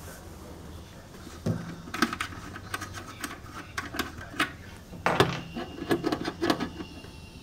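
Irregular clicks and small knocks of an antenna being handled and fitted onto the connector on top of a metal ammo-can radio box. They start about a second and a half in and come thickest near the middle and end.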